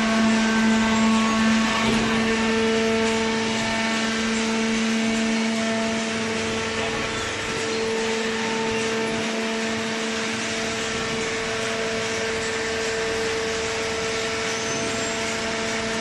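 Hydraulic cardboard baler's electric motor and pump running: a steady mechanical hum with a constant whining tone over a hissing background.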